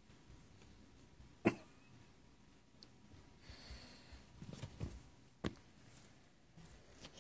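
A few sharp knocks and soft bumps with faint rustling. The loudest knock comes about a second and a half in, a cluster of softer bumps follows near the middle, and another sharp knock comes about five and a half seconds in.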